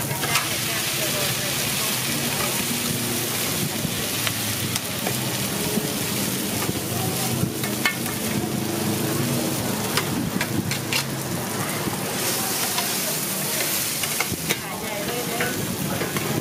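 Pad thai noodles and shrimp sizzling in oil on a large flat griddle, while two metal spatulas scrape, toss and turn them, with scattered clinks of metal on the pan.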